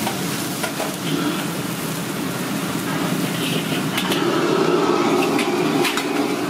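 Commercial gas wok burner running steadily under a steaming wok, a little louder about four seconds in, with several sharp metal clinks of a wire strainer ladle and wok tools.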